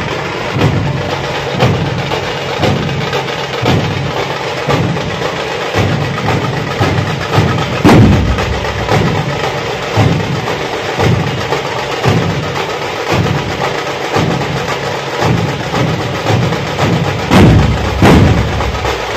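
A dhol pathak ensemble of large barrel-shaped dhol drums beaten with sticks, deep booms keeping a steady beat about once a second under a dense rattle of faster strokes. Heavier strikes land about eight seconds in and again near the end.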